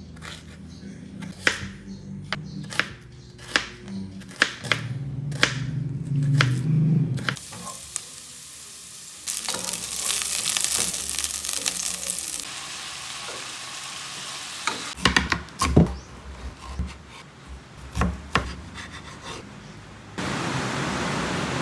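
Kitchen knife chopping ginger on a plastic cutting board, about two strokes a second. Then sliced onion and ginger sizzle in hot oil in a pan as they are stirred, and after that comes more knife-on-board cutting. About twenty seconds in, heavy rain starts suddenly, a steady loud rush.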